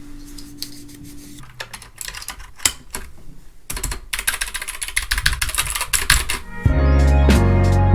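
Rapid, irregular clicking of keys being typed on a computer keyboard, growing busier partway through. About seven seconds in, music with a heavy bass starts.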